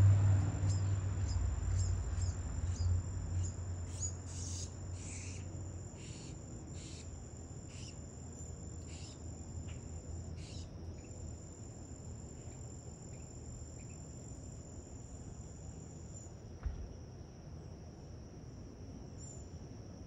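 Insects trilling steadily on a high, even pitch in a summer garden. From about 4 to 11 seconds in, a row of short chirps sounds about once a second over the trill. A low rumble fades out in the first few seconds, and there is a single soft knock near the end.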